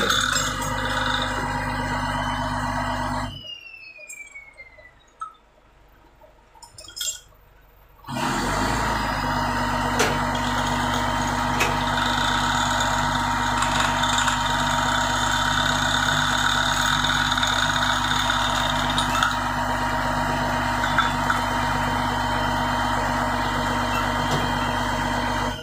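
Fishing boat's engine and deck machinery running with a steady drone. The sound falls away about three seconds in and comes back some five seconds later.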